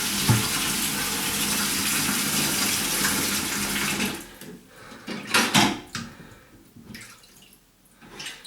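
Kitchen tap running water into the sink, shut off about four seconds in, followed by a couple of sharp knocks.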